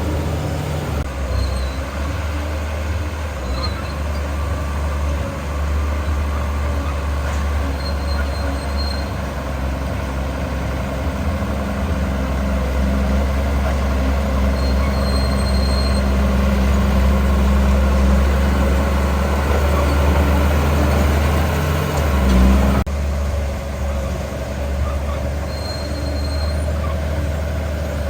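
Diesel engine of heavy earthmoving machinery running steadily, with a little louder stretch in the second half and a brief swell near the end. Faint short high squeaks come now and then.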